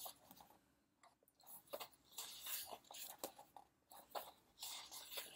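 Pages of a hardcover K-pop album photobook being flipped and handled: an irregular run of faint papery rustles with a few sharp flicks.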